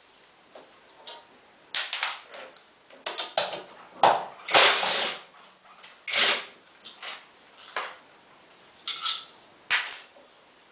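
Irregular metallic clinks and knocks of tools and parts being handled while working on a washing machine, about a dozen separate short impacts with pauses between them.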